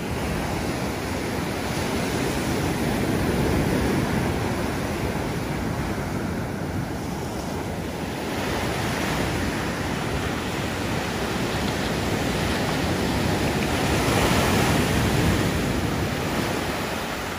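Ocean surf breaking on a sandy beach and washing up the shore, a steady rush that rises and falls as each wave comes in.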